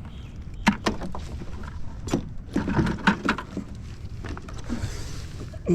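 Wind rumbling on the microphone, with a scatter of sharp knocks and clatters from handling gear, several in quick succession in the middle.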